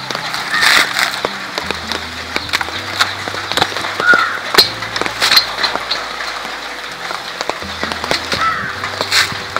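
Background music with a low bass line that steps to a new note every second or two, over frequent sharp cracks and snaps.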